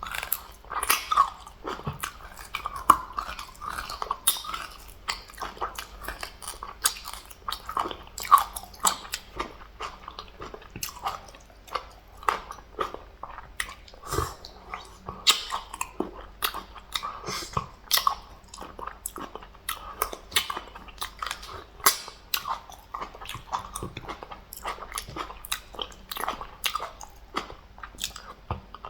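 Close-miked ASMR eating: a person chewing and biting a meal of fufu, soup and meat, with wet mouth clicks and smacks coming several times a second.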